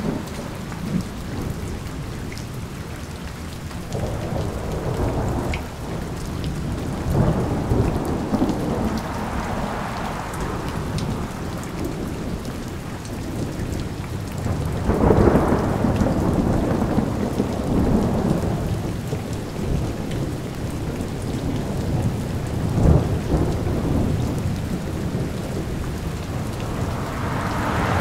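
Steady rain falling, with thunder rolling in several long swells of low rumble, the loudest about halfway through.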